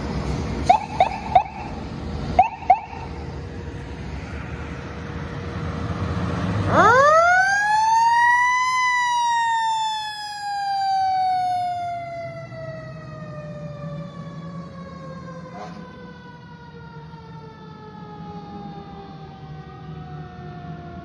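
A few short horn blips over a diesel engine's rumble in the first three seconds. About seven seconds in, a fire engine's mechanical siren winds up to a loud wail within two seconds, then slowly winds down, its pitch still falling at the end.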